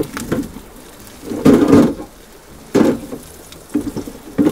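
A wooden spoon stirring and scraping corned beef in a frying pan on a camping gas stove. There are a few light clicks, a louder scrape about a second and a half in, and a sharp knock against the pan near three seconds.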